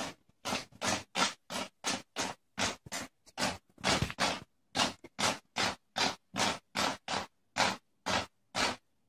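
A cat clawing at an upright panel: a fast, even run of short scratching strokes, about three a second, that stops shortly before the end.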